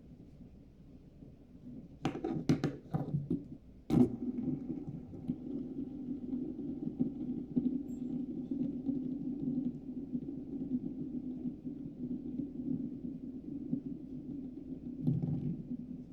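Plastic Rubik's cube fidget spinner handled with a few sharp clicks and knocks, then spinning with a steady low whir for about eleven seconds. A soft thump comes near the end.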